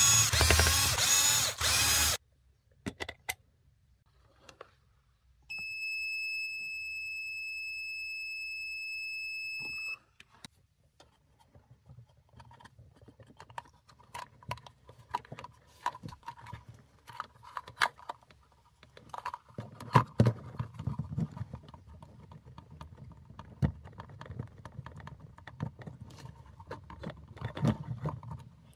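Cordless drill running for about two seconds as it backs screws out of a 12V oil pump's plastic casing. A few seconds later a steady high-pitched beep sounds for about four seconds. Then come a long run of small clicks, knocks and rattles as the pump's casing, motor and screws are handled and taken apart by hand.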